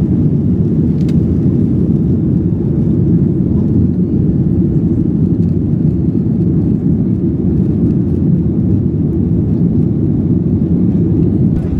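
Steady low rumble of an airliner in flight, heard inside the passenger cabin.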